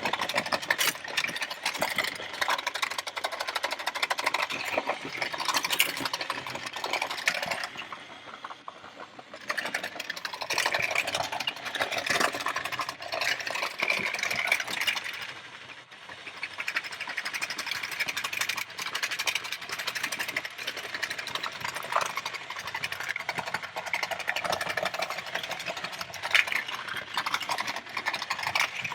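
CAT E-Z Machines remote-control toy bulldozer's small electric motor and gears whirring as it spins and drives, with clicking and clatter as it bumps into things, easing off briefly twice.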